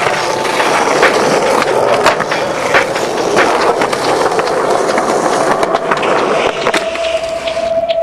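Skateboard wheels rolling on concrete, broken by several sharp clacks of the board against the ground as tricks are popped and landed.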